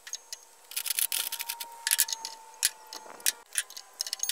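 Steel wrenches clinking and clicking as they are handled, set down on the saw table and tried on the blade nut of a radial arm saw. The clicks are sharp and irregular.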